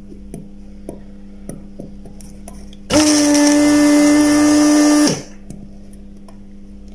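Vacuum pump of a Weller WR3M rework station running for about two seconds, drawing molten solder off a circuit-board joint through the desoldering iron. It is a steady pitched drone with a hiss of air that starts and cuts off abruptly.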